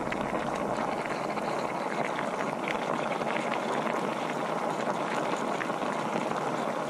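Stir-fried vegetables and moose meat in sauce sizzling and bubbling in a wok under a glass lid: a steady hiss with small scattered pops and crackles.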